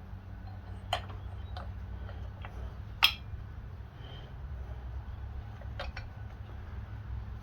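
Scattered light clicks and taps of hand tools and small metal parts being handled while working on a chainsaw, the sharpest click about three seconds in, over a steady low hum.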